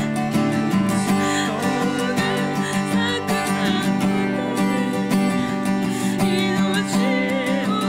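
Acoustic guitar strumming, accompanying a worship song that is being sung.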